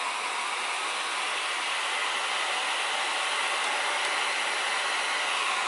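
Handheld hair dryer running steadily, a smooth even rush of blown air.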